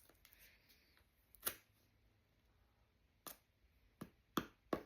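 Plastic cap and seal of a new Mod Podge squeeze bottle being worked open by hand: about five sharp clicks, one early and a quicker cluster near the end.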